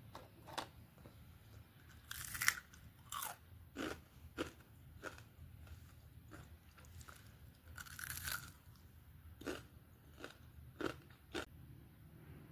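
Crispy fried potato snacks being bitten and chewed: irregular sharp crunches, with two longer crackly bites about two and eight seconds in.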